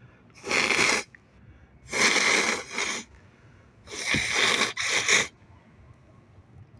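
A person's forceful bursts of breath through the nose, three times, the second and third each ending in a shorter burst.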